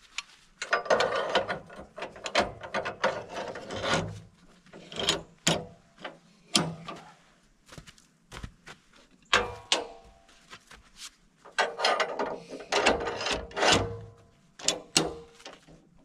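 Metal clanking and ratcheting with knocks of wood, in irregular bursts separated by short pauses: the portable sawmill's log clamp and dogs being worked to secure a big red oak log on the bed.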